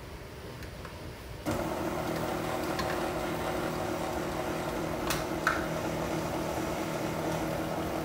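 Electric stand mixer switched on about a second and a half in, its motor then running steadily at stir speed as it mixes cake batter in a metal bowl. There are a couple of light clicks about five seconds in.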